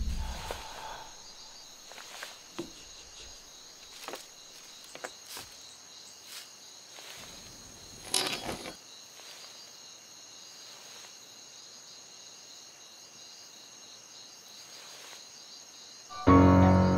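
Crickets chirping in a steady high drone, with scattered short crunches and knocks on leaf-littered ground, the loudest about eight seconds in. Music comes in loudly just before the end.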